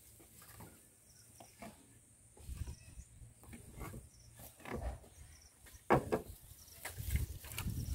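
Quiet outdoor background with scattered light knocks and low thumps, and a sharper knock about six seconds in.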